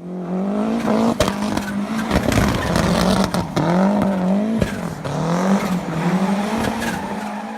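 A vehicle engine running, its pitch rising and falling over and over, with scattered sharp clicks and knocks.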